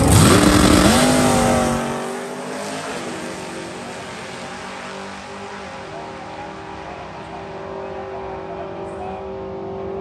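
Race car accelerating hard down a drag strip, its engine pitch climbing, dipping at a gear change and climbing again, then fading as it pulls away in the first two seconds. A steadier engine hum continues after it.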